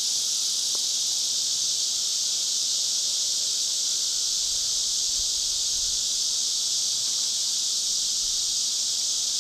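Katydids calling in a steady, unbroken high-pitched chorus, the loudest sound throughout.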